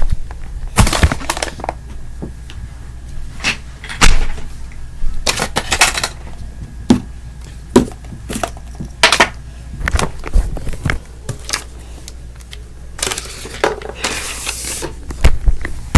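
Irregular clicks and knocks of small objects being handled, with a few short rustling noises, over a steady low hum.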